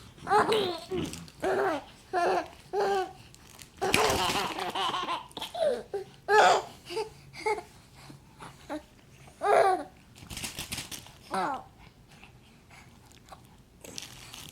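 Baby giggling and babbling in short bursts, with a longer breathy laugh about four seconds in.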